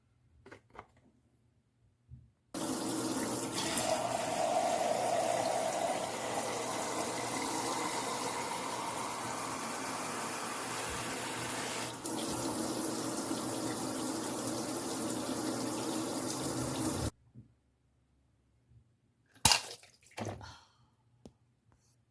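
Water running steadily from a tap for about fifteen seconds, then cutting off suddenly. A few short knocks follow near the end.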